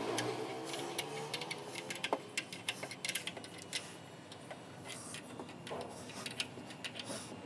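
Irregular light metallic clicks and ticks of a small spanner and a car battery's terminal clamp being handled and tightened as the cable is fitted.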